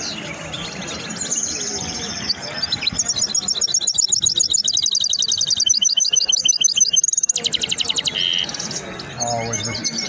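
Caged songbird singing: a long, rapid run of high chirping notes that grows louder, breaking into a fast buzzy trill about seven seconds in.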